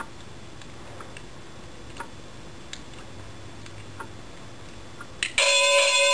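Faint ticks about once a second, then a click and a GE 19209 wireless doorbell chime sounding its boxing-ring bell tune. It is a loud, steady electronic bell ring with many overtones, starting about a second before the end.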